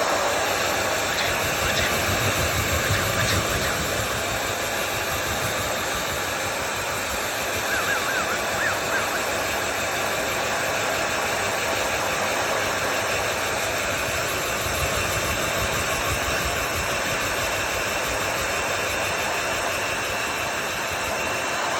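Hair dryer running steadily, with a cockatiel giving a few quick chirps about eight seconds in.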